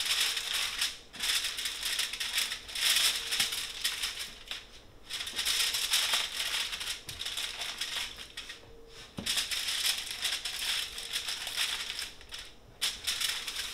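Aluminum foil crinkling as it is folded and crimped shut around a fish packet for steaming, in spells with short pauses between them.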